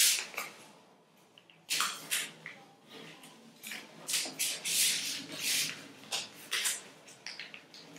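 A sheet of paper being folded and creased by hand on a tabletop: crisp rustling and sliding strokes as the fingers press the folds, with a short lull about a second in.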